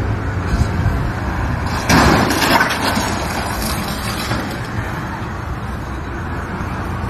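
Street vehicle noise, a steady rough noise that grows louder for about a second from two seconds in.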